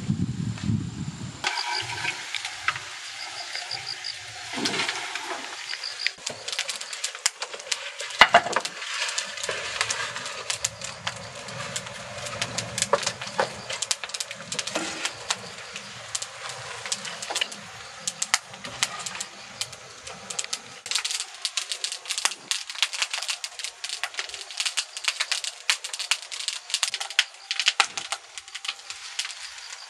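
Firewood burning in a wood-fired train kiln, crackling with dense, irregular pops. There is a louder knock about eight seconds in, and a few high bird chirps in the first seconds.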